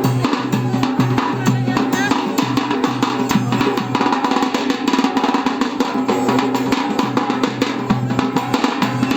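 Arab wedding music: fast, dense drumming over a steady held low tone.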